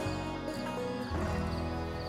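Background music: a melody of held notes changing about every half second, with a low bass line.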